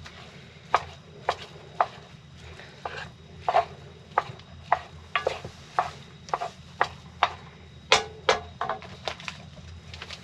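Kitchen utensil knocking in a run of sharp, irregular taps, about two or three a second, some with a short ring.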